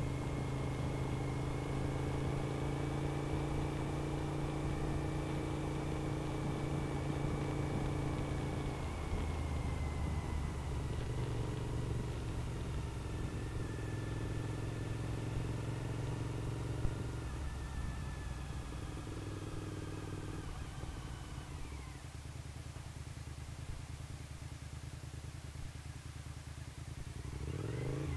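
Suzuki SV1000S 90-degree V-twin running under way, its pitch stepping down several times through the first twenty seconds, then falling away to a quieter, lower note as the bike slows. Near the end it revs back up in a quick rising sweep, with wind rush over the camera throughout.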